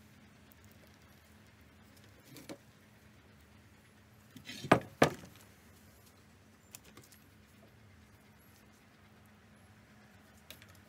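Two loud, sharp knocks about half a second apart, a little under halfway through, from handling a steel upper control arm and its bushings on a wooden workbench, with a few light clicks of handling before and after.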